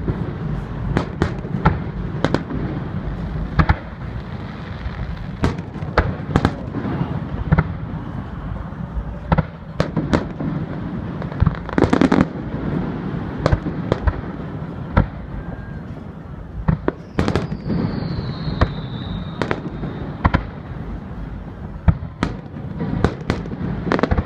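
Aerial fireworks bursting: many sharp bangs and cracks in quick, irregular succession over a steady low rumble, with a loud boom about halfway through and a falling whistle about two-thirds of the way in.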